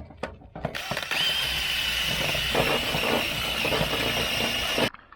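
A handheld electric power tool spinning up about a second in, running with a steady high whine over a harsh, hissing noise for about four seconds, then cutting off abruptly. It is brushing or grinding a fresh MIG weld bead on a steel mower deck.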